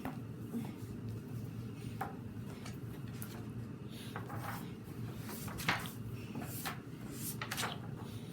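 Scattered light knocks and rustles of a picture book being handled and its pages moved, over a steady low room hum.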